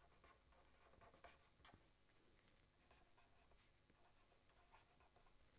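Very faint scratching of a marker pen writing on paper in short, irregular strokes.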